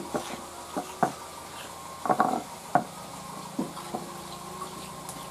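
Stone roller (nora) grinding wet spice paste on a grooved stone slab (shil): a rough scraping with irregular knocks of stone on stone.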